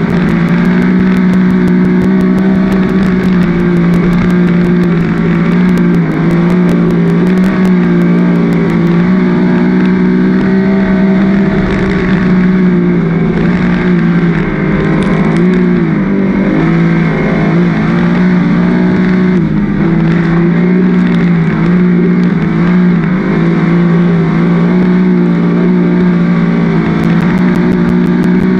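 Winged dirt sprint car's V8 engine at racing speed, heard from on board the car: a loud, steady engine note whose pitch wavers briefly up and down midway as the throttle is worked through the turns.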